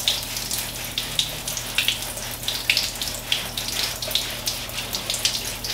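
Water running and splashing in a shower, with irregular wet swishes as a soapy mesh bath sponge is scrubbed over a wet leg.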